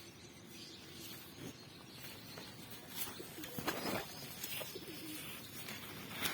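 A dove cooing, in low coos, with a few sharp rustling clicks in between.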